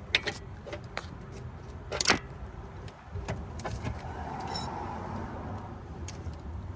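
Wrench clinking and clicking on metal as a bolt is tightened in a car's engine bay, with one louder metallic clank about two seconds in.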